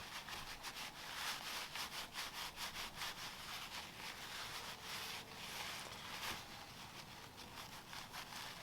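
Faint rubbing and scratching from hands working a .22 LR cartridge at the bench: a quick run of small scrapes, densest in the first few seconds, then thinning out.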